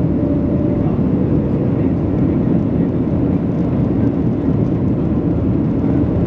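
Steady cabin noise of an airliner climbing after takeoff: a low rumble of jet engines and rushing air, heard from inside the passenger cabin.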